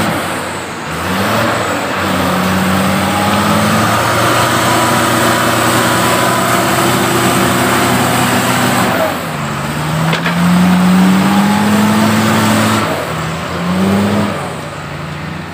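Diesel engines of a truck stuck in mud and a JCB backhoe loader revving hard, the pitch climbing in several surges with a steadier stretch between, as the machines strain to push the truck free.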